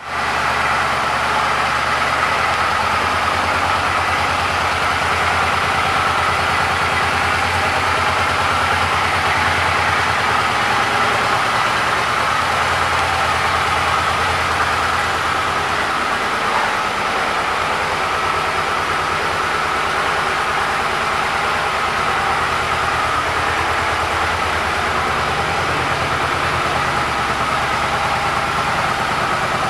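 Suzuki Boulevard C50's 805 cc V-twin engine idling steadily.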